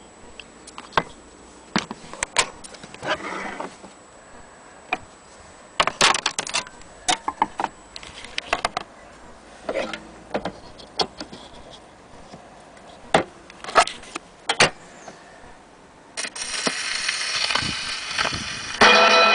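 Sharp metallic clicks and knocks of a chrome gramophone soundbox being handled and fitted onto its tone arm. About sixteen seconds in, the needle's surface hiss and crackle from the spinning record comes in and grows louder. Music from the acoustic gramophone begins just before the end.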